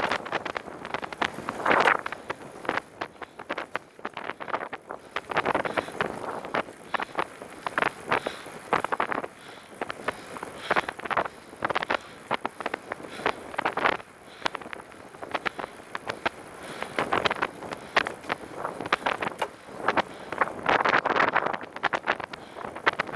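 Wind buffeting the microphone of a camera riding on a moving recumbent trike, swelling and easing unevenly, with a scatter of clicks and rattles from the ride.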